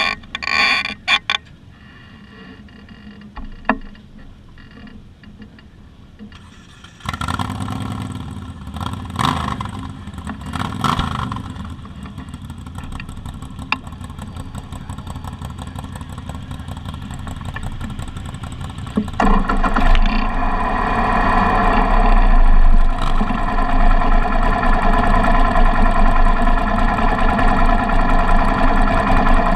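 A motorcycle engine catches suddenly about seven seconds in and is revved a few times, rising and falling, then keeps running. About twelve seconds later the engine sound gets much louder and runs steadily.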